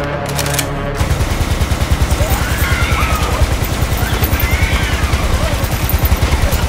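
Belt-fed machine gun firing one long automatic burst of rapid, evenly spaced shots, starting about a second in.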